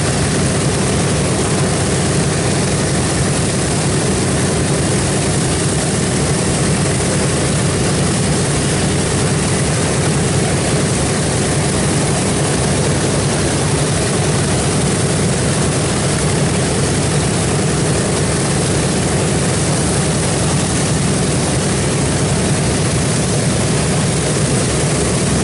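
Boeing B-17G Flying Fortress's four Wright Cyclone nine-cylinder radial engines running steadily at low, taxiing power, a deep, even propeller drone.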